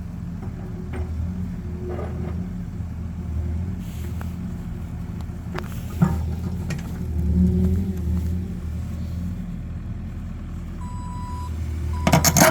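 Excavator's diesel engine running steadily, swelling as the machine works. A single sharp knock comes about halfway through, and a burst of clanking starts near the end as the bucket digs at rock.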